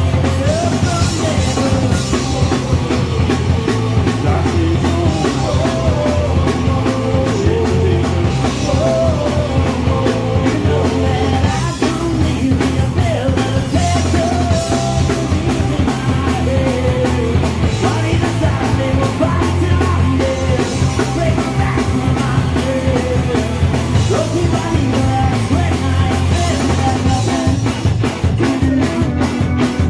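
Live punk rock band playing loud and without a break: distorted electric guitars over bass and a drum kit.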